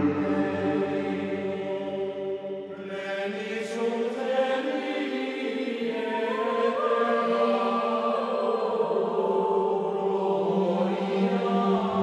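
Background music of slow, long-held chords that change only a few times, with no speech.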